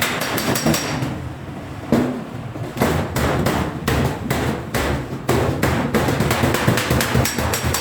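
Hammer blows on steel sheet: a quick run of strikes, then slower separate blows, then rapid hammering again near the end.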